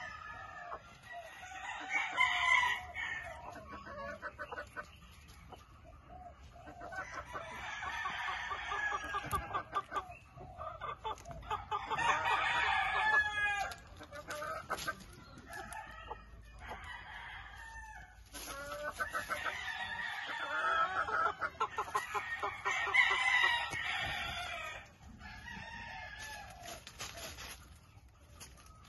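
Chickens crowing again and again, several drawn-out crows a few seconds long, with clucking in the quieter gaps between them.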